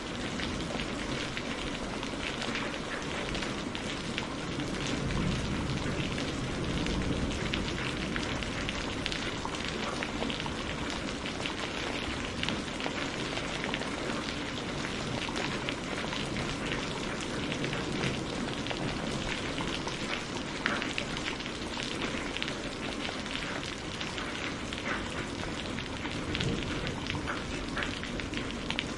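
Steady rain falling, with a dense mass of separate drop impacts ticking through it.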